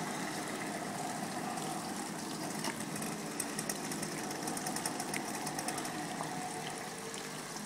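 A group of small two-stroke moped engines idling together, a steady buzzing hum with scattered light ticks about halfway through.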